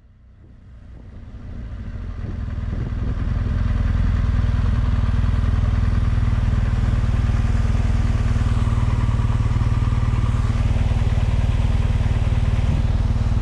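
BMW R1200GS Adventure's boxer-twin engine running under way, with wind rushing past, growing louder over the first few seconds and then holding steady.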